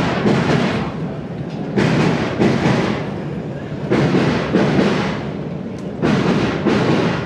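Background music with a slow, steady beat that swells about every two seconds.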